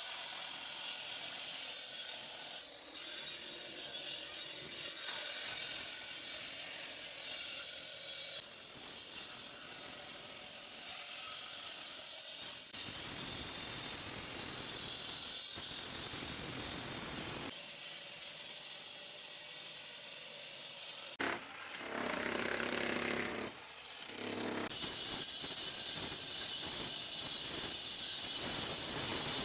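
Diamond-blade saw cutting concrete: continuous abrasive cutting noise that shifts in pitch and loudness as the blade works, with a louder, fuller stretch lasting about two seconds roughly two-thirds of the way through.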